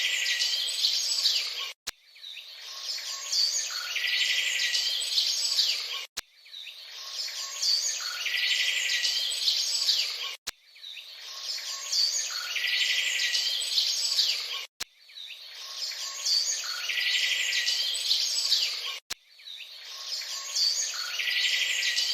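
Birds chirping and calling in high, quick notes, a short recording of a few seconds played over and over about five times, each repeat starting with a click.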